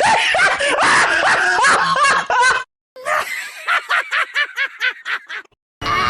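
Cartoon character voice effects: a loud, dense stretch of overlapping vocal sounds, then after a brief pause a quick laugh of about a dozen short pulses. Music starts just before the end.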